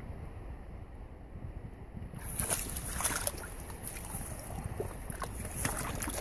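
Shallow creek water splashing and sloshing as a dog wades along the bank, with a steady low wind rumble on a phone microphone. From about two seconds in, a hiss rises and a handful of sharper splashes follow.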